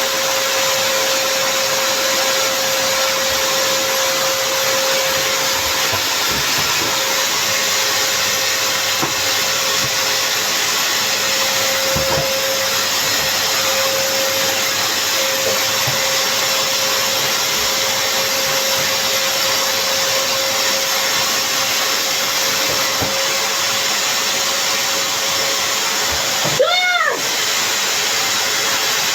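Samsung vacuum cleaner running steadily: a loud, even rush of air with a steady hum. Near the end its pitch briefly swoops up and back down.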